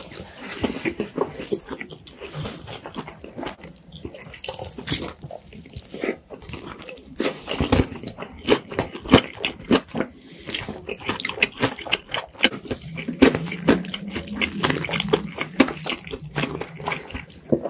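Crispy fried chicken being bitten and chewed, crunching in quick irregular crackles with wet mouth and smacking sounds.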